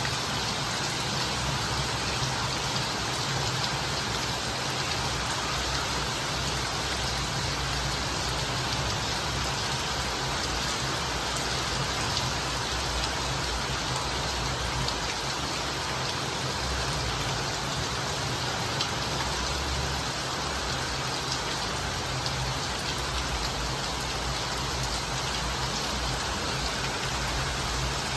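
Steady heavy rain falling and pattering on surfaces, a constant even hiss with a low rumble underneath.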